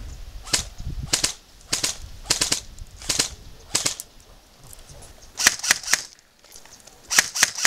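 Airsoft rifles firing: sharp snapping shots spaced about half a second apart, then two rapid bursts of about four shots each in the second half.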